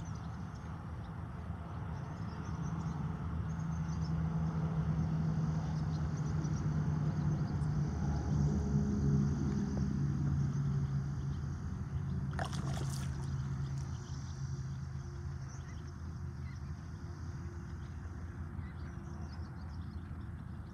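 A distant engine drones at a steady low pitch, growing louder over several seconds and then fading away, as something motorised passes. A single short, sharp click about twelve seconds in.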